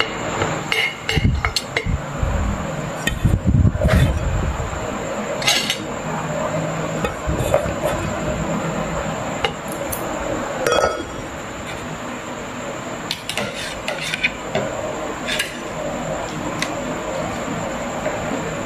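A plastic rice paddle scooping cooked rice onto a plate, with scattered knocks and clinks of the paddle and dishes, busiest in the first few seconds.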